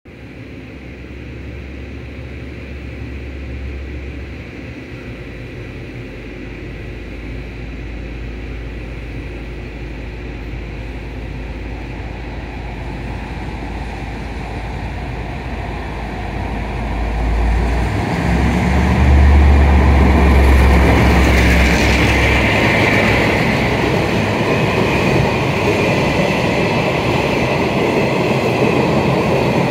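Freight train passing through a station without stopping. A low rumble and hum grow steadily as the train approaches. About 18 seconds in, the locomotive goes by with a loud low hum, followed by the steady rumble and clatter of open wagons and flat cars rolling past.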